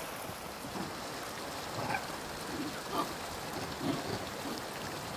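Steady rush of flowing water, with a few faint short calls or voices about two, three and four seconds in.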